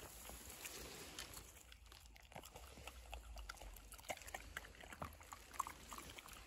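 Footsteps on a forest trail, faint and irregular, with leaves and twigs crackling and rustling underfoot.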